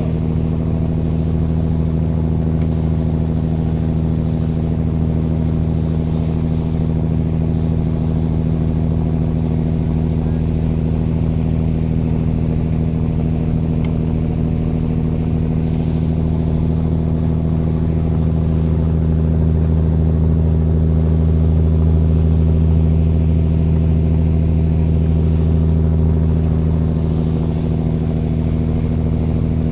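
Boat engine running steadily at a constant speed, a little louder about two-thirds of the way through.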